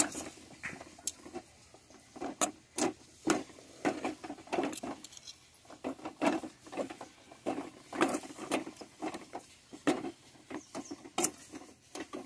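Metal spoon scraping and knocking against a metal pan as thick, cooked rice-flour dough is stirred and mashed, in irregular strokes about once or twice a second.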